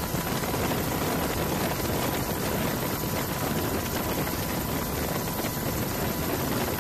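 Helicopter in flight heard from on board: a steady, even rush of engine and rotor noise with a faint steady whine under it.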